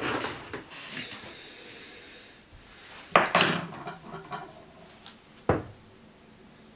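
Hard objects being handled: scattered clatter and knocks, with two sharp knocks about three seconds in and another about five and a half seconds in.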